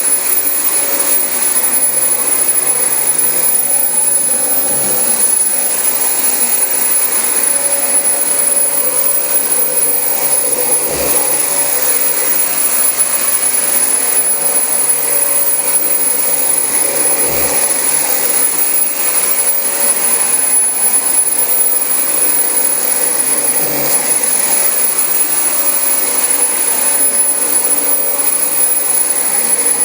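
Dyson DC25 upright vacuum cleaner running steadily on carpet: a loud rush of air with a constant high whine from the motor, and a few faint low bumps as it is pushed about.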